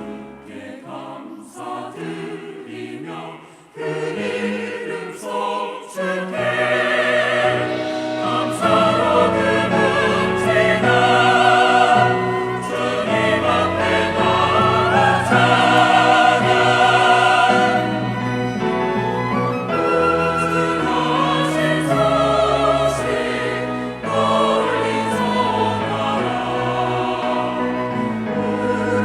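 Church choir singing an anthem with instrumental accompaniment. It is sparse and softer for the first few seconds, then swells to full voice about four seconds in and stays full.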